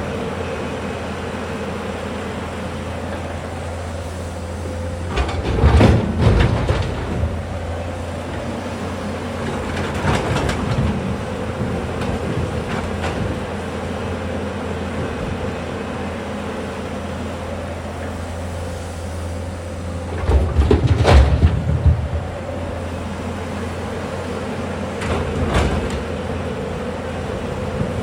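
Tata Hitachi excavator's diesel engine running steadily with a constant drone as it digs. There are four louder stretches of knocking and rattling, the loudest about two-thirds of the way through.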